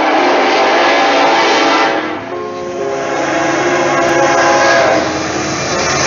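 Diesel locomotive air horn sounding a steady multi-note chord. About two seconds in it cuts abruptly to another horn blast.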